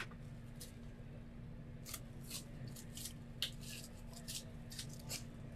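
Faint handling noises from a small alcohol-ink dropper bottle being picked up and handled: about a dozen small, scattered scratchy clicks, over a low steady hum.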